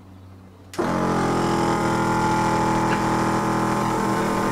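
Small portable air compressor switched on about a second in, then running steadily as it pumps air into a football's bladder to over-inflate it.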